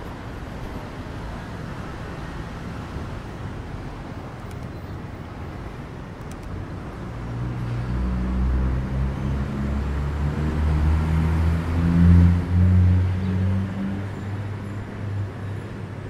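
Steady city traffic noise, with a motor vehicle's low engine hum building about halfway through, loudest a little before the end, then fading as it passes.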